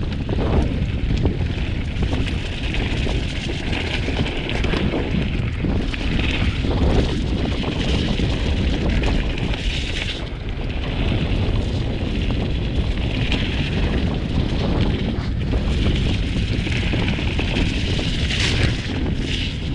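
Heavy wind rumble on the camera microphone mixed with the running noise of a mountain bike rolling fast over a rough, muddy trail, steady throughout.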